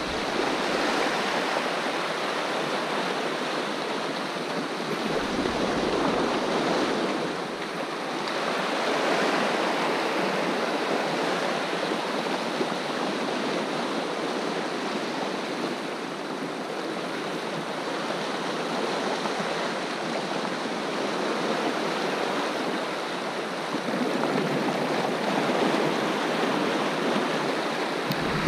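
Sea water washing and splashing, a steady rush that swells and eases every few seconds.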